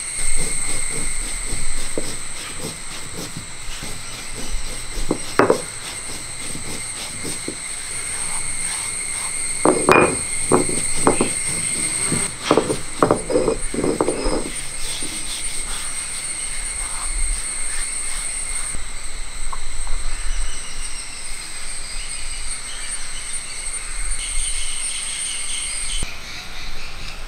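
Stone roller knocking and grinding on a flat grinding stone as cumin seeds and cardamom pods are crushed, with a quick run of knocks about ten to fifteen seconds in. A steady high insect trill goes on throughout.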